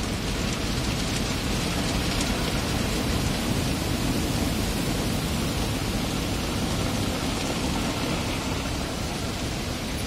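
Automatic car wash spraying water over the car, heard from inside the cabin: a steady rush of water on the windshield and body with a low rumble beneath it.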